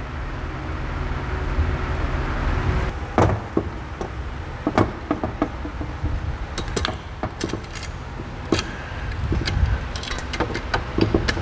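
Irregular metallic clicks and clinks of a valve spring compressor and small steel parts being worked on a cylinder head while fitting valve keepers, with a low hum in the first few seconds.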